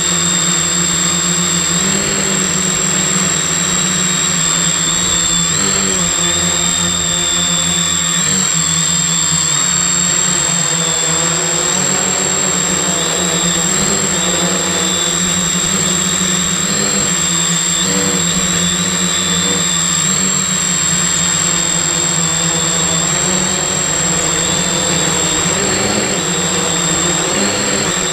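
Multirotor drone's brushless motors and propellers buzzing steadily in flight, heard up close from a camera mounted on the frame, the pitch wavering slightly up and down now and then. A steady high whine runs over it.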